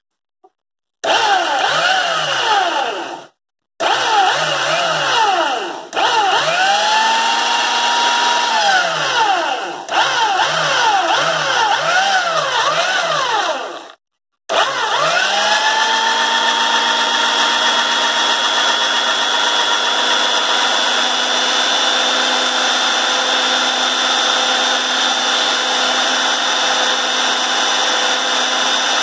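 1965-built belt sander with a 100 V brushed motor, switched on and off repeatedly, its whine rising and falling as it spins up and coasts down, with several short cutouts. About halfway through it spins up and runs steadily, unloaded, with its belt off the wood.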